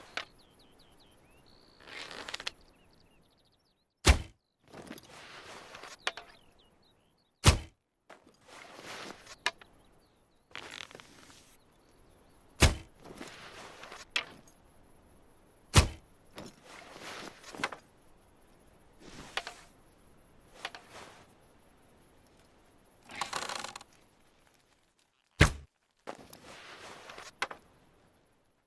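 Arrows shot from a bow, each striking with a sharp thunk: five impacts several seconds apart, with longer, quieter noisy sounds between them.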